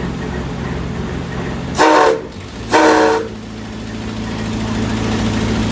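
Grand Trunk Western 4070's steam whistle sounding two short blasts about a second apart, each a chord of several tones, over a steady low hum.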